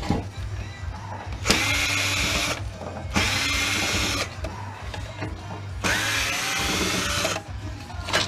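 Ryobi cordless drill-driver running in three short spurts of about a second each, driving screws out of a rear projection TV's lens assembly.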